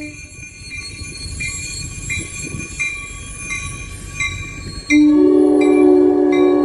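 NJ Transit commuter train approaching a grade crossing: the crossing bell dings steadily over the rising rumble of the train, then about five seconds in the train's multi-note horn comes in loud and holds a long blast, the warning for the crossing.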